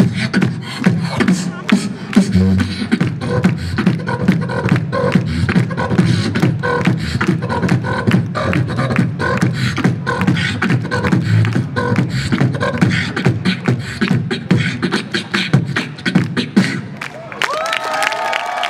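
Solo beatboxing through a PA system: fast drum-like beats with deep bass thumps and sharp clicks. It stops about 17 seconds in, and the crowd starts to cheer.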